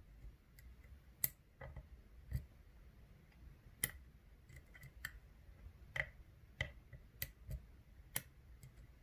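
Faint, irregular small metallic clicks and taps: a lock pick working the pins of an Abus Rock 83/55 padlock's 6-pin core, which is stacked with security pins, while a rigid tension bar holds tension.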